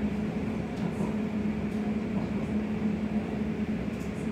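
Running noise inside a Class 345 electric train carriage in motion: a steady hum over a low rumble.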